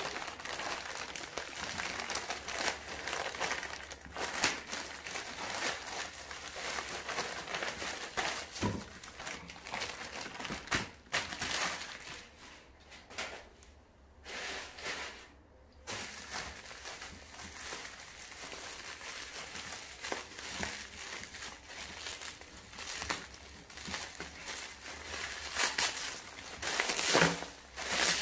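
A plastic courier mailer bag crinkling and crackling as hands open it. After a short lull, bubble wrap rustles as a package is unwrapped, with louder crackles near the end.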